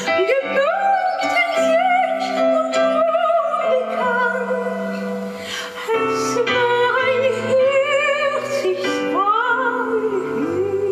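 A woman singing in a classical, operatic style with vibrato and sliding pitch, over held lower accompaniment notes. There is a short break about halfway through.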